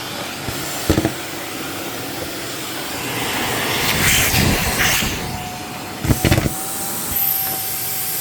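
Shark vacuum cleaner running steadily, with a faint whine, as it sucks up foam packing peanuts. Sharp knocks and rattles come about a second in and as a quick cluster about six seconds in, and the suction noise swells in the middle as more peanuts are drawn in.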